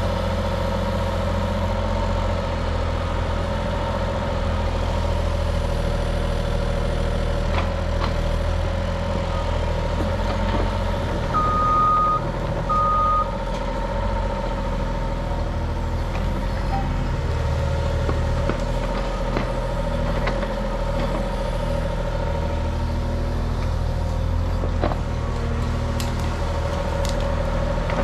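Heavy diesel engine running steadily, with two short high beeps a little over a second apart about 11 seconds in and a few sharp clanks of the machine working.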